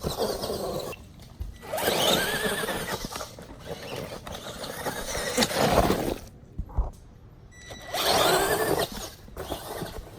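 Electric RC monster truck's motor and drivetrain whining in repeated bursts of throttle, the pitch rising and falling with each run, about four times.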